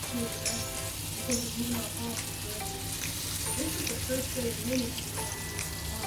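Flour-coated chicken pieces frying in hot oil in a pan: a steady sizzle with scattered small pops.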